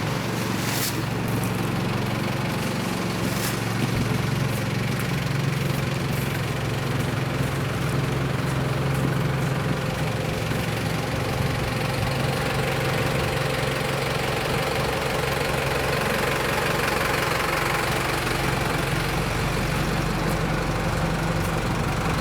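An engine running steadily at idle, a low even drone that holds its pitch throughout.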